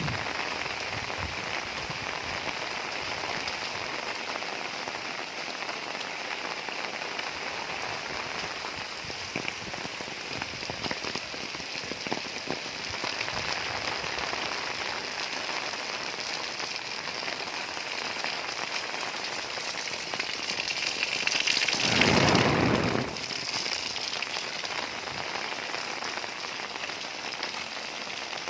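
Heavy rain pouring steadily on a roof. About three-quarters of the way through, a louder rushing burst lasts a second or so and stops abruptly.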